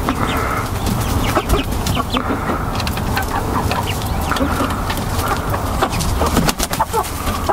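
Several hens clucking together, their short calls repeating throughout, with scattered clicks and taps among them over a low steady rumble.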